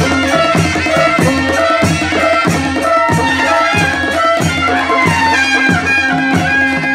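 Panchebaja ensemble playing a dance tune: a wavering shehnai-type reed melody with pitch slides over a steady drum beat of about two strokes a second and clashing cymbals.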